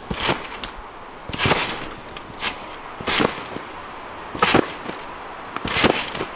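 A backyard trampoline being bounced on: the mat stretches and rebounds with each landing, giving about six short swishing thumps spaced roughly a second apart.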